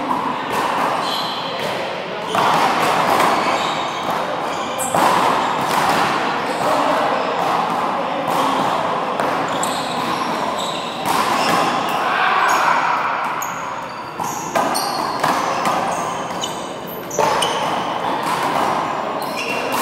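Small rubber handball slapped by hand and smacking off the wall and floor during a rally, a series of sharp hits a few seconds apart, each echoing in the big indoor court.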